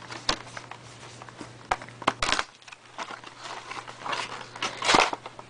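Hands handling a cardboard and plastic retail box: scattered taps and knocks, with a louder crinkle of packaging just under five seconds in.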